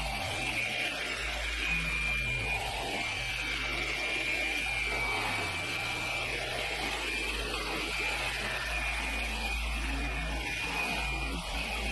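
Electric car paint polisher running steadily under load with a thin, steady whine, buffing a car hood with correcting cream on the pad.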